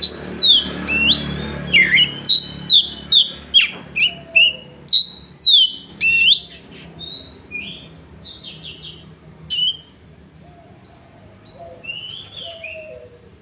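Caged oriental magpie-robin (kacer) singing a loud run of sharp, sweeping whistled notes, about two a second. This is the burst of song that kacer keepers call a 'tembakan'. About six seconds in it drops to softer, scattered notes.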